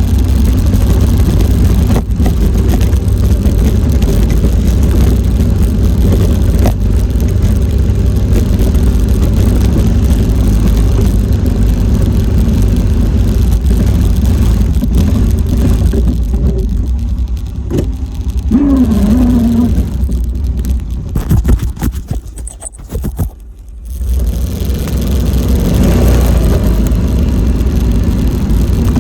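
A four-wheeler's engine runs steadily with a low rumble. Its sound drops away briefly a little past the two-thirds mark, then picks up again.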